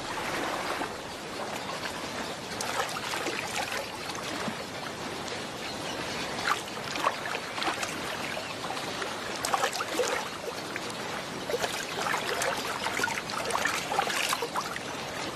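Water splashing and trickling steadily, with many small sharp splashes scattered through it.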